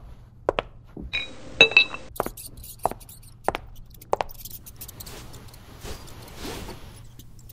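A string of light knocks and taps, with two brief ringing clinks about a second and a half in, over a faint low hum; a soft rustle follows in the second half.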